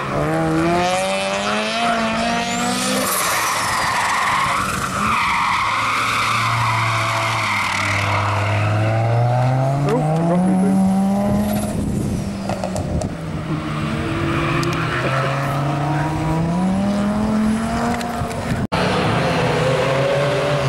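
Historic rally car engines revving hard, the note climbing in pitch and dropping back at each gear change several times over, with tyre noise as the cars slide through the corners. The sound cuts out for an instant near the end.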